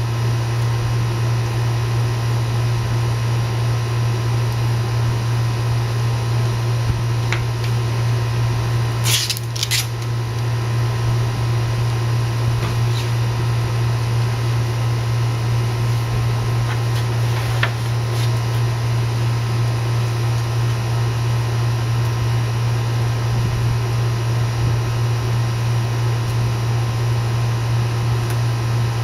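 Steady electric hum with fan-like blowing noise. A short hiss comes about nine seconds in, and a few faint ticks follow.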